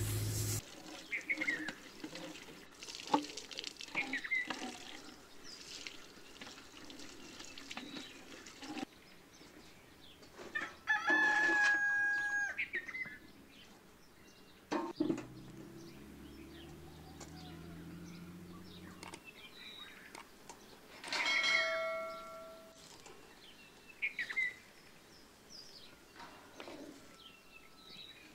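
A rooster crowing twice, about ten seconds apart: the first crow about eleven seconds in and loudest, the second near twenty-one seconds. Small birds chirp and a few clicks sound in between.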